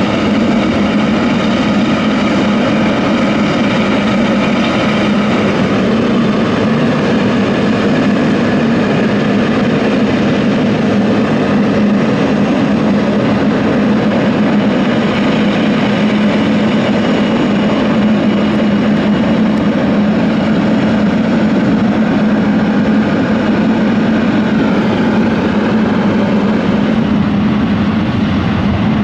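Jet airliner engines running loud and steady, a deep rumble with a faint whine above it.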